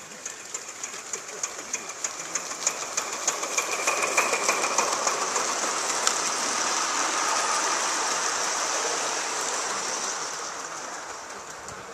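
Gauge 1 live-steam model locomotive chuffing as it approaches, its exhaust beats about three a second and growing louder. A train of wagons then rolls past with a steady rolling noise of wheels on rail that fades near the end.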